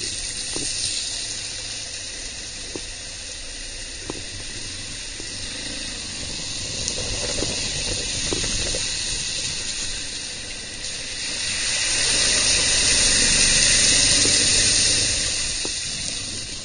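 Torrential rain hissing steadily, swelling louder about eleven seconds in, with a low rumble underneath and a few sharp taps of drops.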